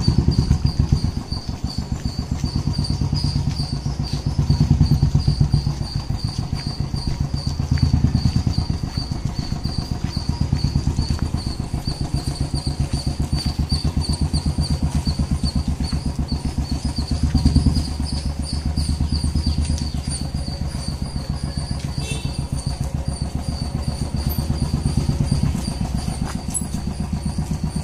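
Motorcycle engine running at low speed as the bike rolls along at walking pace. Its steady low pulsing swells louder every few seconds.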